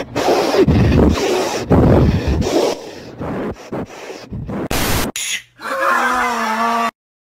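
Loud, heavily distorted and garbled audio with warped, voice-like groans and choppy bursts. Near the end a wavering pitched tone is held for about a second, then everything cuts off abruptly.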